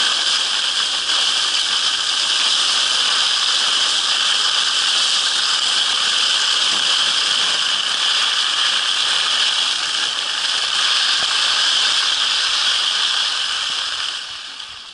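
Steady loud hiss of skis sliding over snow at speed, fading as the skier slows near the end.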